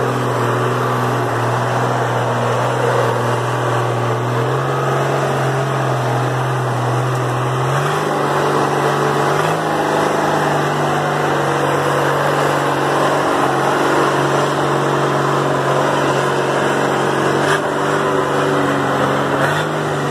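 Engine of an improvised open-framed truck running steadily as it crawls past at close range, its pitch stepping up twice, about four and eight seconds in.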